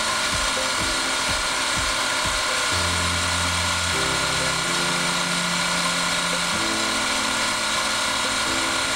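Lathe running with a hand burnisher rubbing against the pivot of a spinning steel arbor, a steady whirring hiss with a fine mechanical chatter. Soft background music with slow changing low notes runs underneath.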